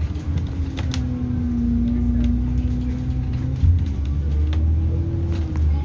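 Bus engine and drivetrain running while the bus drives, heard from inside the passenger cabin: a low rumble under a steady whine that rises slightly in the second half, with light rattles and clicks from the body.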